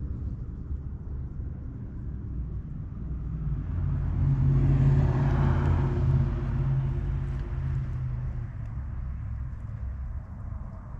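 Motor vehicle engine rumbling, growing louder about four seconds in and easing off again.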